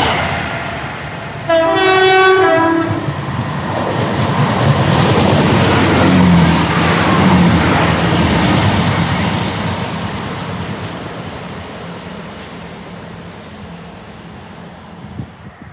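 An approaching electric multiple-unit train sounds a two-note horn for about a second and a half. It then runs through the station at speed, louder as it passes, and the rumble fades away as it recedes.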